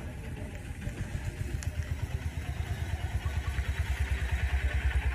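A motor vehicle engine running close by: a low, evenly pulsing throb that grows louder over the last two seconds.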